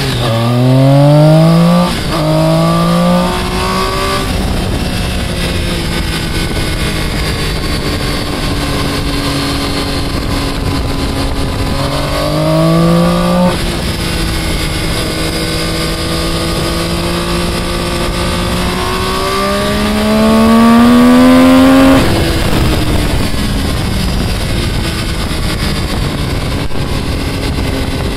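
Engine heard on board, revving up under hard acceleration with a gear change about two seconds in, then cruising. The revs climb and drop again near the middle, rise slowly to a peak about three quarters through, then fall away as it backs off. Steady wind rush throughout.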